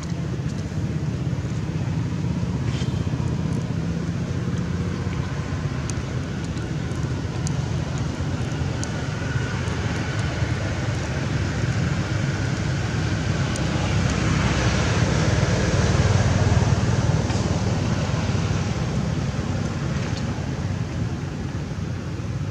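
Steady hum of road traffic, swelling as a vehicle passes about fifteen seconds in.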